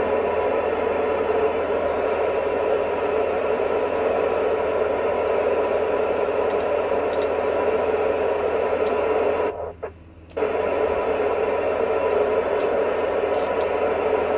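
Steady FM receiver hiss with the squelch open from an amateur transceiver tuned to the ISS repeater downlink near 437.8 MHz, no station coming through. The hiss cuts out for about a second partway through, then returns.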